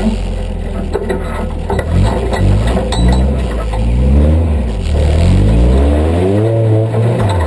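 An engine idling low, then revved hard in several rising surges one after another, the pitch climbing with each, as the vehicle works its way up an obstacle.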